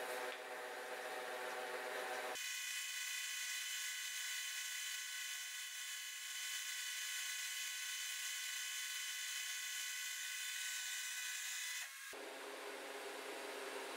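Bridgeport Torq-Cut 22 CNC mill running, a steady machine whine. About two seconds in the sound changes abruptly to several steady high tones, and it changes back to a lower hum near the end.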